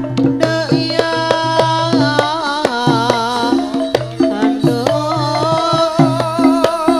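Javanese gamelan music accompanying a tayub dance: kendang hand-drum strokes over ringing metallophones and low gong tones, with a wavering melody line on top.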